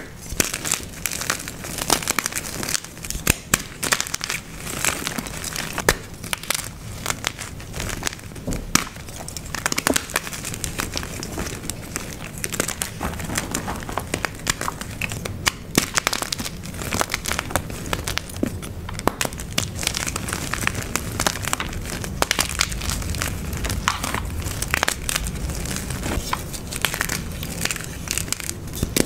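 Dyed gym chalk blocks being crushed and crumbled: a steady, dense stream of irregular crunches and crackles with no pauses.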